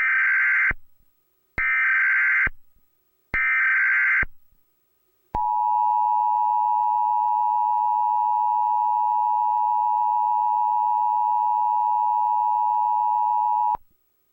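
Emergency Alert System tones: three short bursts of SAME header data, each about a second long with about a second between them, then the two-tone EAS attention signal (853 and 960 Hz together). The attention signal holds steady for about eight seconds and then cuts off sharply.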